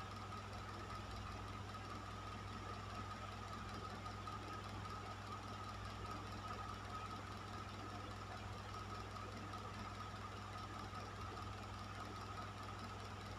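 Electric fan running steadily: an even rush of air over a low motor hum and a faint steady whine.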